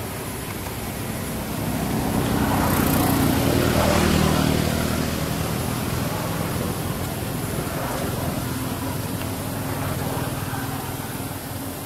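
A motor vehicle's engine passing close by, swelling to its loudest about three to four seconds in, then easing off to a lower, steady hum.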